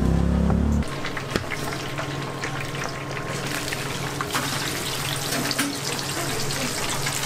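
Floured chicken pieces dropped into hot frying oil, which sizzles and crackles steadily. A loud low hum cuts off about a second in.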